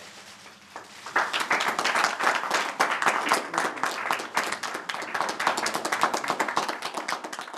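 A small group of people applauding, starting about a second in and going on steadily.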